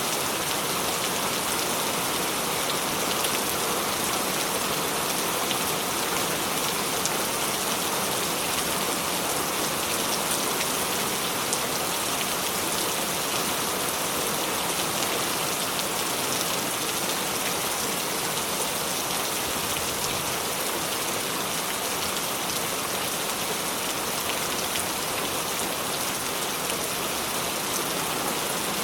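Steady rain: an even hiss of falling drops with faint individual drop ticks, unchanging throughout.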